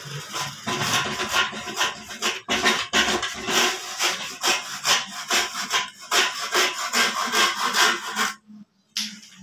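Handsaw cutting through a wooden plug in quick back-and-forth strokes, stopping near the end.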